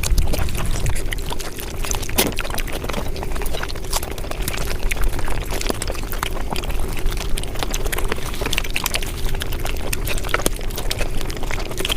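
Close-miked eating sounds sped up about five times, giving a dense, continuous run of quick chewing and mouth clicks.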